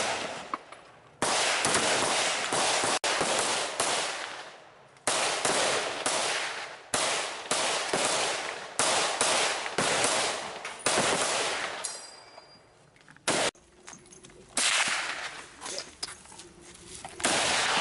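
Rifle gunfire: quick strings of shots from several rifles, among them an AK-74, with a lull about two-thirds of the way through before more shots.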